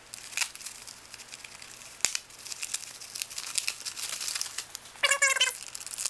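Pink anti-static bubble wrap and a plastic anti-static bag crinkling and tearing as a circuit board is unwrapped, with a sharp click about two seconds in. A short squeaky pitched sound comes about five seconds in.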